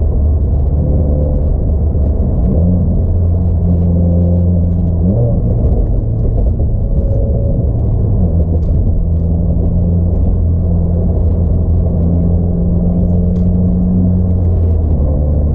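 Subaru WRX boxer engine and exhaust rumbling steadily, its pitch shifting slightly a few times.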